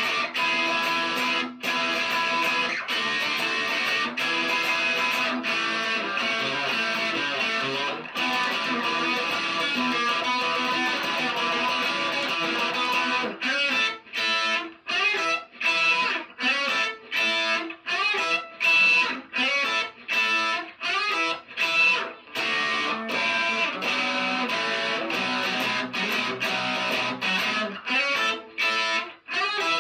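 Beginner's electric guitar playing rock chords. They ring out with a few brief breaks at chord changes, then, about halfway through, turn to short, choppy, clipped strokes.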